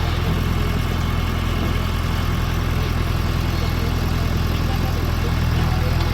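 Engine idling steadily, a low even hum that holds without change.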